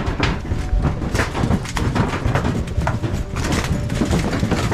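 Irregular footsteps, knocks and crunches of several people carrying a stretcher over earthquake rubble, over a steady low rumble. A faint steady hum comes in about three seconds in.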